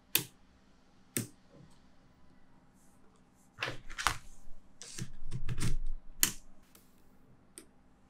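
Small magnetic balls clicking and clacking as a row of them is snapped onto a structure built of the same balls: single sharp clicks at first, then a denser, louder run of clacks through the middle.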